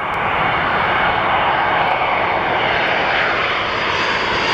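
Jet engines of a Boeing 787 Dreamliner on landing approach, passing low overhead: a loud, steady jet rush that swells up quickly at the start, with a faint whine dropping in pitch as the aircraft goes by.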